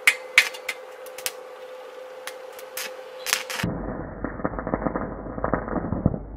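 A string of sharp snapping clicks over a steady hum, then, a little past halfway, the dense crackle of electric arc welding on steel rebar, which stops shortly before the end.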